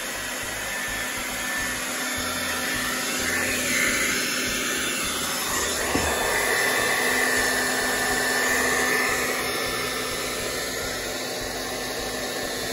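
Electric hair dryer running steadily, a continuous rush of blown air over a faint motor hum, with one sharp click about six seconds in.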